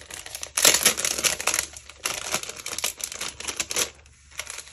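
Plastic packaging crinkling as it is handled, in crackly clusters that begin about half a second in and fade shortly before the end.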